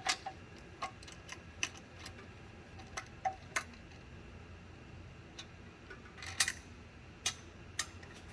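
Sparse light clicks and taps at irregular intervals, with a short cluster of them a little past the middle, over a faint steady hum: handling noise from parts or tools being touched while working under the car.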